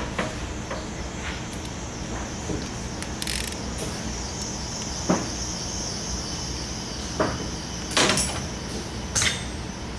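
A hand ratchet and socket click and clink a few times on a steel bolt as it is run back into a Hanbell screw compressor's slide piston, over a steady background hum.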